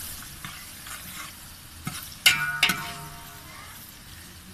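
Sliced onions sizzling in hot oil in a large metal pot as they are stirred with a metal spoon. About halfway through the spoon clanks twice against the pot, each clank ringing, with a lighter knock just before.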